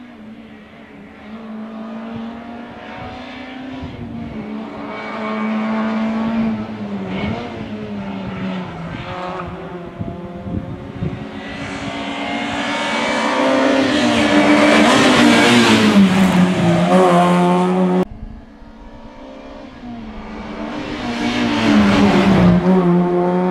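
Rally car engine driven hard, its pitch climbing and dropping again and again through gear changes as it comes closer and gets louder. After a sudden cut it approaches again and is loudest passing close at high revs near the end.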